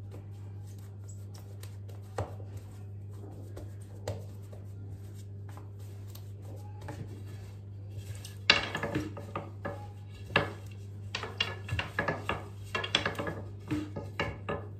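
A long wooden rolling pin (oklava) rolling out pide dough on a silicone mat on the counter: a run of knocks, clatter and rubbing from about eight seconds in, after a few faint taps as the dough is pressed out by hand. A steady low hum sits under it all.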